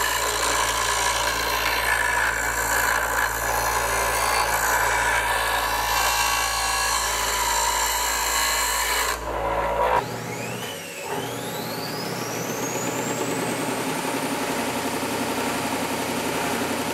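Bench grinder wheel grinding a steel knife blade, a steady harsh grinding for about nine seconds. It cuts off abruptly, and another shop machine's motor starts, its whine rising in pitch for about three seconds and then running steady.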